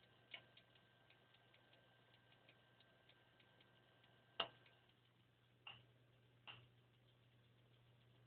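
Failing Seagate Barracuda 7200.10 320GB PATA hard drive under a surface scan, making scary noises: faint rapid ticking, about three ticks a second, over a steady low hum, broken by four louder clicks, the loudest about four and a half seconds in. The clicks are the sign of a drive with read troubles that is going back under warranty.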